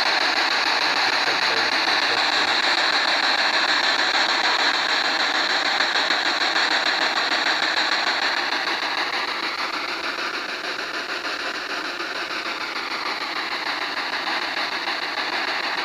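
Spirit box sweeping through radio stations: a steady, loud hiss of static, easing a little about eight seconds in.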